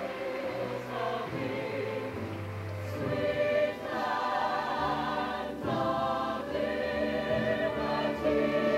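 Large mixed show choir singing sustained chords in harmony, growing louder about three seconds in.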